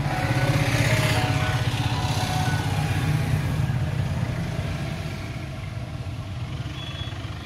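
A motor vehicle engine running nearby with a rapidly pulsing low rumble, louder over the first few seconds and then slowly fading.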